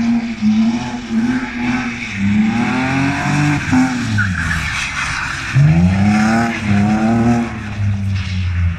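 BMW engine revving hard while its tyres squeal and skid through a drift on asphalt. The revs rise and fall repeatedly, with a sharp climb in pitch about five and a half seconds in.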